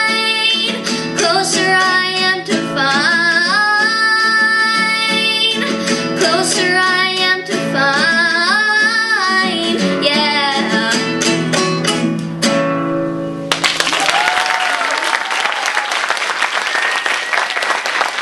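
A young girl sings the last notes of a song while strumming an acoustic guitar. About thirteen seconds in, the music stops and the audience breaks into applause.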